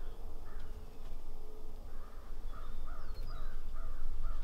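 A series of turkey yelps: short, evenly spaced notes, about two and a half a second, starting about two seconds in, over a steady low wind rumble.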